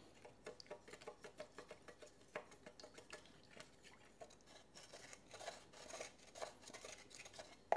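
Faint, irregular small clicks and taps of kitchen utensils against metal cookware, with one slightly louder click about two and a half seconds in.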